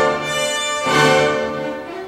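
Classical orchestral music: two loud sustained chords, the second about a second in, then the music drops to a softer string melody near the end.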